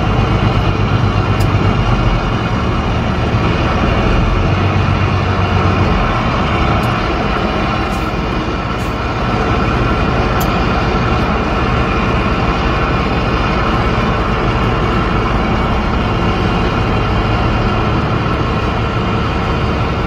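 Diesel semi-truck engine running steadily, heard from inside the cab; its low drone eases about six seconds in.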